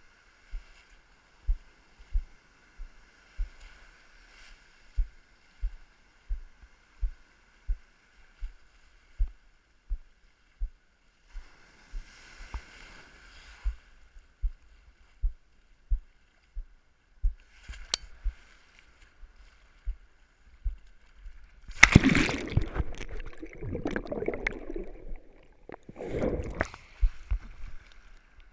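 Ocean surf washing around a camera at water level: a faint hiss of water with regular low thumps, about one and a half a second. Near the end, two loud rushes of water as waves wash over and past the camera.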